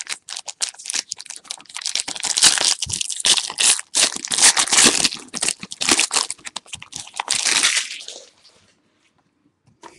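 A sealed trading card pack's wrapper being torn open and crinkled, a dense crackling that stops about eight seconds in.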